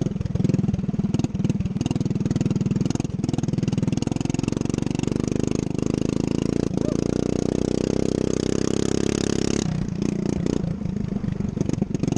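Racing ride-on lawn mower engine running hard on track. The revs climb about four seconds in, hold high, then fall off sharply about ten seconds in, as when the throttle is lifted.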